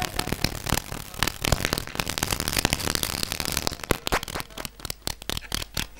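Rapid, irregular crackling and clicking from a handheld microphone knocking and rubbing against a plastic pipe.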